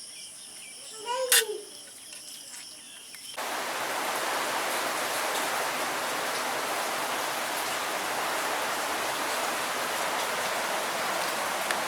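Insects chirping steadily, broken by one short loud call about a second in. About three seconds in the sound switches abruptly to heavy rain, a steady even hiss.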